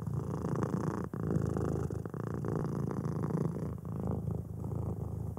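Domestic cat purring steadily, with a brief break about a second in.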